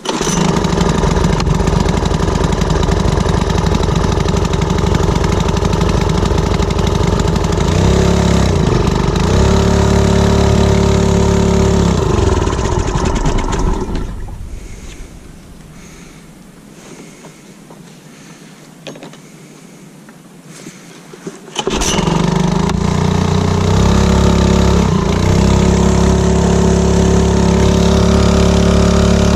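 Small Honda four-stroke outboard motor running and being revved up, while its propeller does not turn and the boat does not move. About 14 seconds in the engine dies away and it is much quieter for several seconds. About 22 seconds in the engine starts again abruptly and is revved once more.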